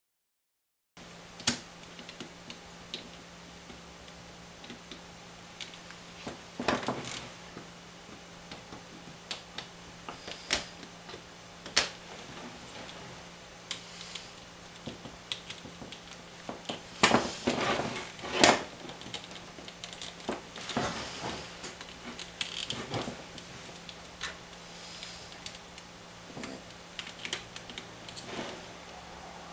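Scattered clicks, taps and light rattles of hand tools and a plastic plug being handled while an electrical plug is fitted onto a cord, with a busier stretch of rattling a little past the middle.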